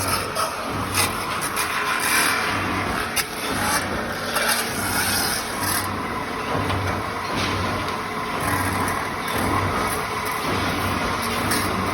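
A metal-spinning lathe running while a tool presses and rubs against the spinning metal pot blank. It makes a steady scraping hiss that swells and eases irregularly over a low, unevenly pulsing hum.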